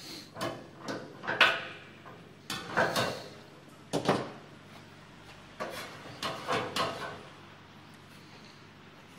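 Metal künefe pan clattering on the stove burner as it is handled: short clusters of knocks and scrapes over the first seven seconds, then only a low steady background.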